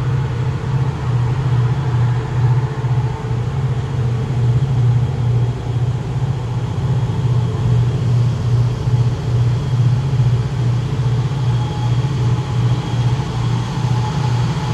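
Large diesel engine running steadily with an even low throb, about two to three beats a second.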